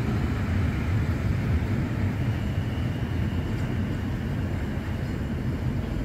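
South Western Railway Class 450 Desiro electric multiple unit running away over the tracks, its low rumble slowly fading as it recedes.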